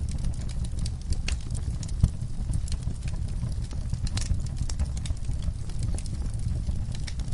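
Wood fire in a fireplace crackling, with irregular sharp pops over a steady low rumble; the loudest pop comes about two seconds in.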